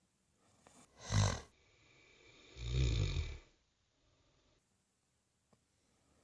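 A woman snoring in her sleep: a short, loud snore about a second in, then a longer, deeper snore around the middle.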